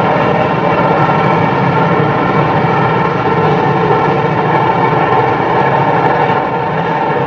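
Freight cars of a long train rolling across a steel girder railway bridge, a steady, unbroken rolling sound with a ringing hum.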